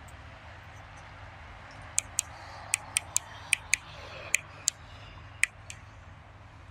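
About ten sharp, irregularly spaced clicks over a steady low hum.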